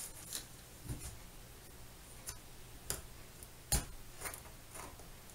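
Knife blade scraping and clicking as it slits the tape along a small cardboard box's seam, a few scattered strokes with one sharper knock about three-quarters of the way through.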